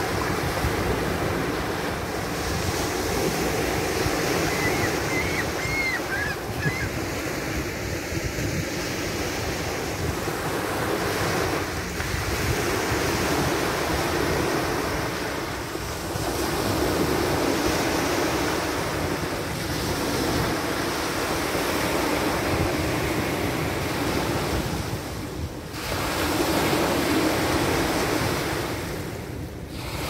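Small waves breaking and washing up the shore in a steady surf, with wind rumbling on the microphone. A few short gull calls come about six seconds in.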